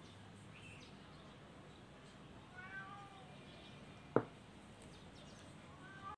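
A cat meows once, a drawn-out call of under a second, and gives a short rising cry near the end. A single sharp knock just after four seconds in is the loudest sound.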